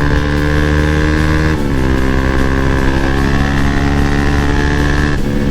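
Bajaj Pulsar NS200's single-cylinder engine running at steady revs while the motorcycle is ridden, with a small drop in revs about a second and a half in before it holds steady again.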